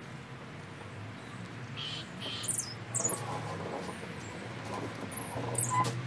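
Garden birds chirping: two short calls about two seconds in, then quick high falling chirps, with more near the end, over a low steady hum.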